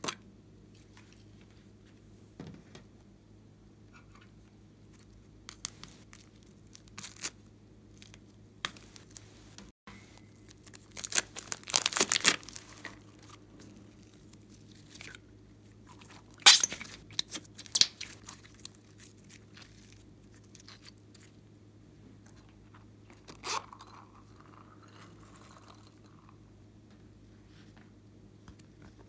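Hands handling slime, a small plastic container and a silicone mold: sparse clicks and crackling pops, thickest in two short spells near the middle.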